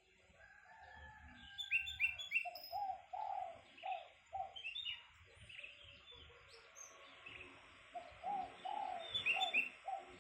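Domestic ringneck dove (puter) calling in quick runs of short repeated coo notes, a bout about two seconds in and another near the end, with higher chirping notes mixed in.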